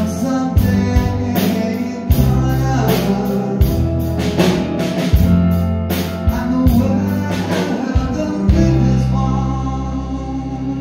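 A slow song performed at an electric keyboard, a man singing over sustained bass notes and steady drum and cymbal hits.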